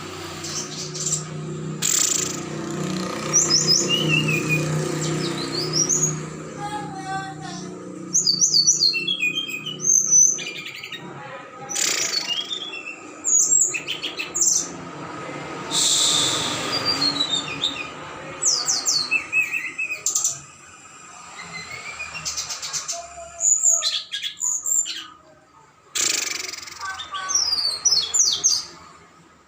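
Several songbirds chirping and calling at once in quick rising and falling notes, broken every few seconds by short harsh bursts.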